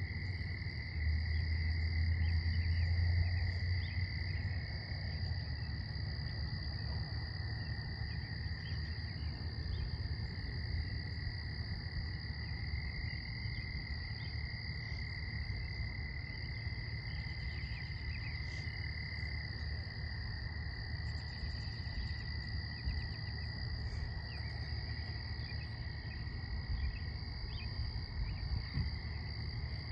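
A steady chorus of small calling creatures, trilling without a break at two high pitches. Under it is a low rumble that is strongest for the first few seconds and then eases off.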